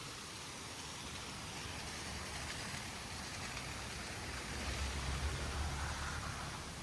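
Steady rushing hiss of flowing water, a stream or small waterfall. A low rumble swells briefly a little over four seconds in and fades before the end.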